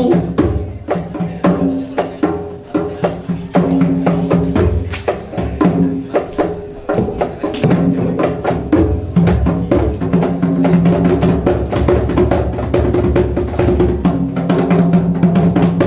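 Instrumental music with a busy percussion part, fast strikes over held low notes.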